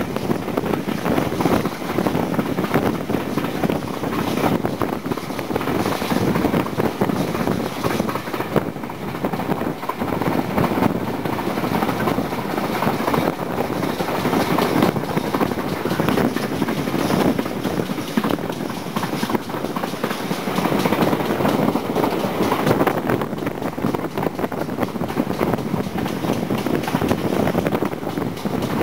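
Steam-hauled passenger train running at speed, heard from an open carriage window: a steady rumble and rattle of the coaches on the track.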